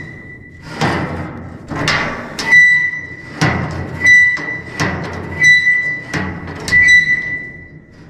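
About nine sharp metallic knocks at irregular intervals, each leaving a clear high-pitched ring that hangs on until the next.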